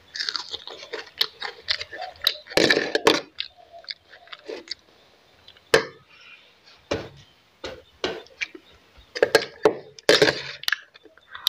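Close-up chewing and crunching of a mouthful of fried rice, eaten by hand. It comes in irregular bursts with sharp wet mouth clicks and lip smacks between them.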